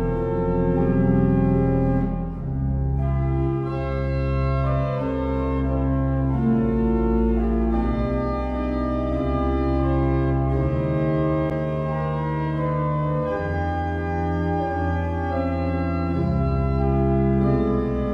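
1912 Martin Binder & Sohn pipe organ playing a chorale prelude: held chords moving slowly over a deep pedal bass, the texture thinning briefly about two seconds in.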